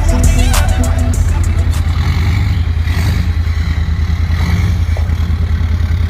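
A vehicle engine running steadily with a deep, pulsing low rumble, with a song playing faintly over it.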